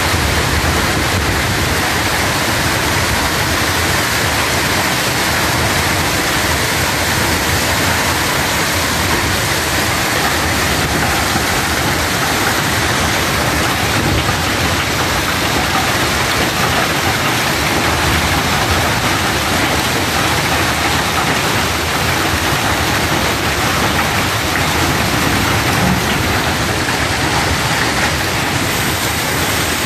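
A hailstorm: hailstones mixed with heavy rain pelting down on a wet road and parked cars, a dense, steady rush of countless small impacts.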